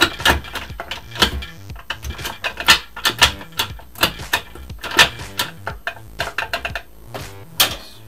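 Nissan 350Z six-speed manual gearbox being shifted by hand through its gears with a short-throw gear stick: a run of quick metallic clicks and clunks, several every second, as the lever snaps into and out of each gear.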